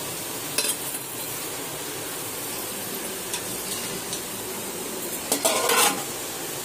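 A wide aluminium lid clatters down onto a large aluminium pot of boiling rice water about five and a half seconds in, over a steady hiss from the pot boiling on a gas stove. A short metal clink comes about half a second in.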